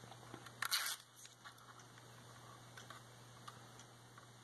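Small clicks and handling noise from a plastic motion-sensor case in the hands. A short crinkly rustle a little under a second in comes as the liner is peeled off its 3M mounting tape.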